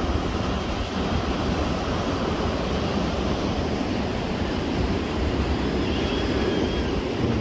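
Ocean surf breaking on a rocky sand beach, a steady rush of waves, with wind rumbling on the microphone.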